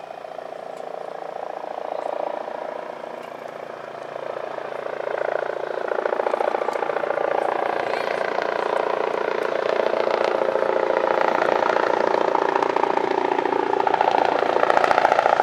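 Lifeliner 2 trauma helicopter, a Eurocopter EC135, flying in: a fast, steady rotor chop that grows steadily louder as it approaches.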